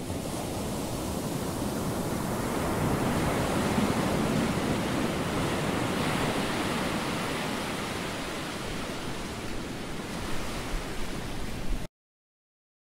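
Ocean surf breaking on a beach: a steady wash of waves that swells over the first few seconds and then eases, cutting off abruptly to silence near the end.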